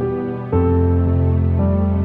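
Slow, sad background music of held chords, a new chord coming in about half a second in.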